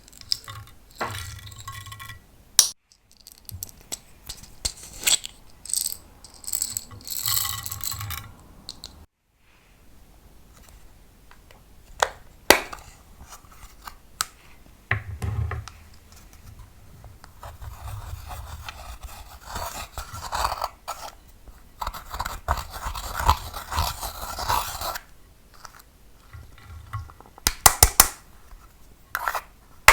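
Close-miked scraping broken by sharp clicks and taps, from makeup such as eyeshadow being scraped out and handled for mixing into slime, with a quick run of clicks near the end.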